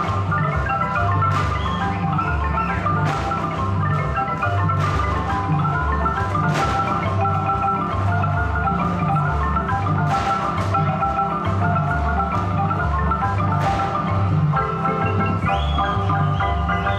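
Marimba music with a steady, repeating bass line, in the Chiapas folk style, accompanying the dance. Occasional sharp accents cut through it.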